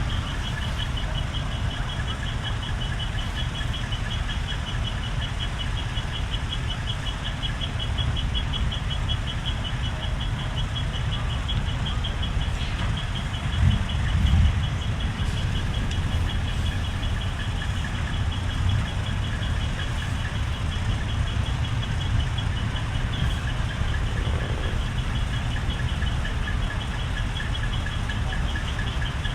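Large truck's diesel engine idling steadily, with a brief swell about halfway through. A fast-pulsing high tone runs alongside it, joined by a lower pulsing tone later on.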